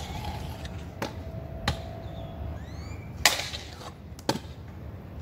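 Stunt scooter clacking against a concrete ledge during tricks: about five sharp knocks of wheels and deck on concrete, the loudest a little past the middle, one followed by a brief metallic ring.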